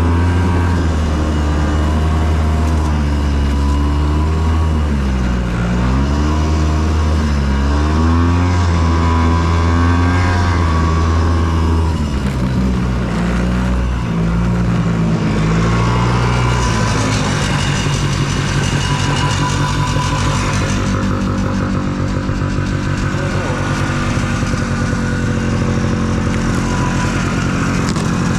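Ski-Doo Tundra snowmobile engine running on the move, its pitch rising and falling with the throttle; about halfway through, the note changes and steadies.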